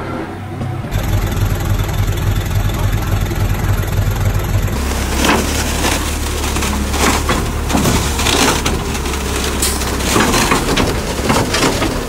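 Heavy diesel earth-moving machinery running with a steady low drone. The sound changes abruptly about a second in and again a little before halfway. From then on, repeated sharp crunching and cracking, as of soil and debris being pushed and broken, comes over the engine.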